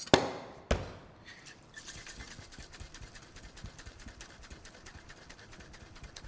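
Two sharp knocks near the start, then a cocktail shaker being dry-shaken without ice, the lemon juice, amaretto and egg white sloshing inside in quick, even strokes.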